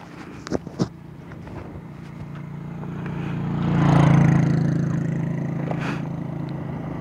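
Yamaha motor scooter's engine idling with a steady low hum, while a vehicle passes on the road, growing louder to a peak about four seconds in and then fading. A couple of small knocks in the first second.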